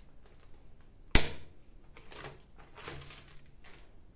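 A single loud clack about a second in, followed by quieter knocks and rustling: something with legs being set down and handled, clacking loudly.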